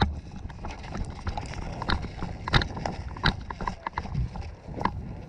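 Irregular sharp clicks and knocks, several close together, the loudest about two, two and a half, three and a quarter and five seconds in.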